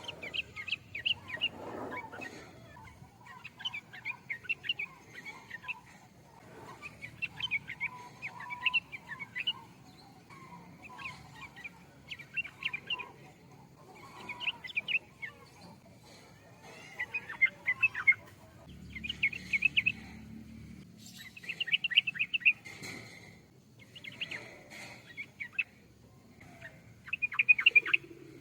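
Yellow-vented bulbul (trucukan) singing: short bursts of quick, bubbly chirps repeated every second or two, with a faint low hum underneath.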